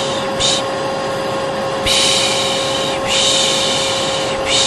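A person's soothing 'shh' shushing ('piş piş') repeated over the steady drone of a vacuum cleaner motor: a short shush, then two long ones of about a second each, and another starting near the end. It is a calming white-noise loop for a baby.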